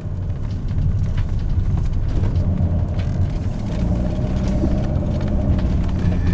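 Mercedes E-class ambulance driving slowly, heard from inside the cab: a steady low engine and tyre rumble with a few light knocks and rattles.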